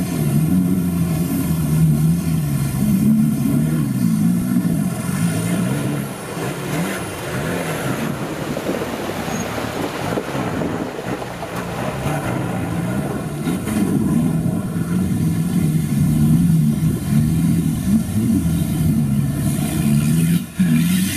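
Off-road 4x4's engine revving up and down hard as it drives through a shallow river and onto rocks, with water splashing around the wheels. The revs ease for a few seconds in the middle, then climb and fall again.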